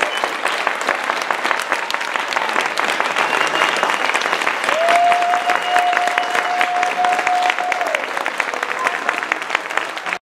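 Crowd applauding with dense clapping, while many people stand. A single long steady note sounds over the clapping from about five seconds in for some three seconds, and all of it cuts off suddenly near the end.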